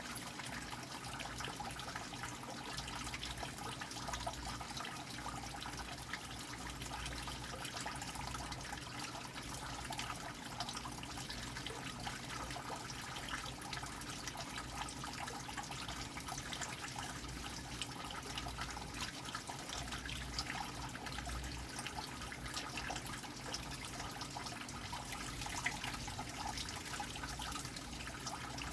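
Water falling steadily into a drain, a continuous trickling and splashing with no let-up.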